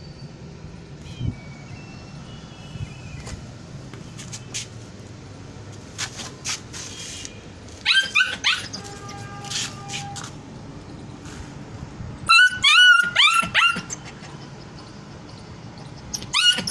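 Two-month-old Kuchi (Afghan shepherd) puppy giving high-pitched yips and barks: a few about eight seconds in, a loud run of about five around twelve to fourteen seconds, and more starting near the end.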